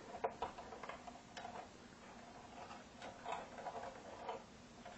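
Faint, irregular small clicks and scrapes of wiring and push-on connectors being handled by hand inside a tube amplifier's metal chassis.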